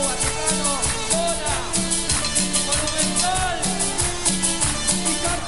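Cumbia villera band playing live, an instrumental passage. A steady bass note repeats on the beat under regular percussion strokes, and a keyboard lead with bending notes plays over them.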